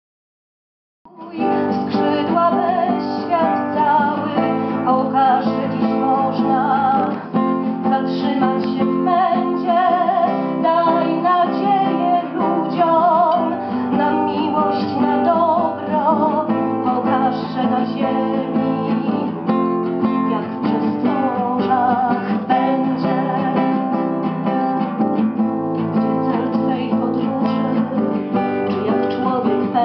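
Acoustic guitar music, strummed and plucked, starting suddenly about a second in after silence and running on steadily.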